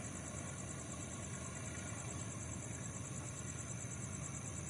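Night insects trilling in a steady, finely pulsing high chirr, over a low steady rumble.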